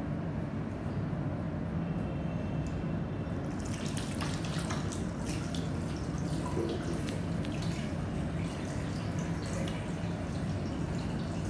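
Tap water running into a washbasin, starting about three and a half seconds in, splashing as hands are rinsed under the stream. A steady low hum lies underneath throughout.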